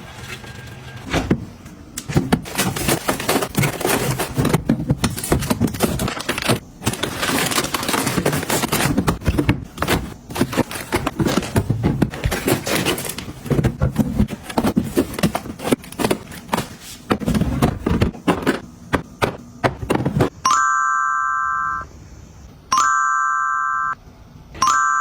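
Dense clicking, tapping and rustling of items and packaging being handled and set down, then three electronic beeps near the end, each lasting about a second, about two seconds apart.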